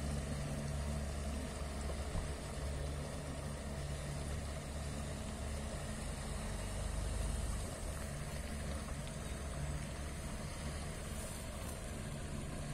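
Outboard motor of a small motorboat running steadily while towing seven rowing boats, heard as a low, even hum from across the water.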